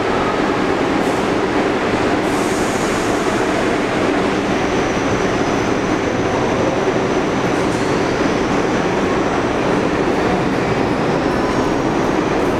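New York City subway train running through the station, a steady loud rumble, with a faint high wheel squeal about halfway through.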